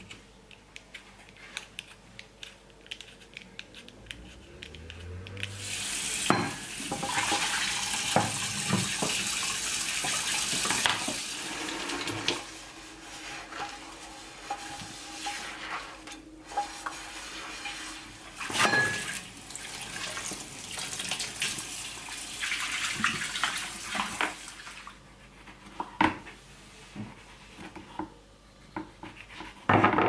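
Kitchen tap running into a sink, with a frying pan being scrubbed with a sponge and knocking against the sink. The water runs for about six seconds, stops, and runs again briefly later on.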